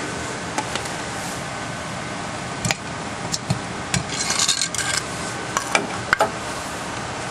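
Scattered knocks and clinks with a short scraping rattle about four seconds in, as hard objects are handled, over a steady ventilation hum.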